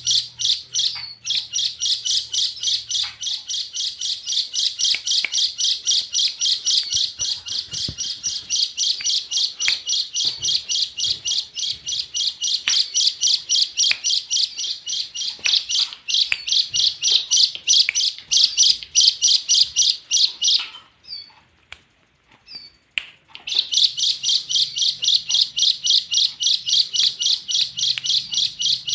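A tame bird chirping in a fast, even run of high chirps, about four a second. It breaks off for a few seconds past the middle with only a couple of single notes, then carries on.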